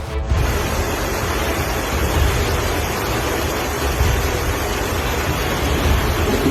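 Fast-moving floodwater rushing steadily through a flooded street, a dense wash of water noise with a heavy low rumble.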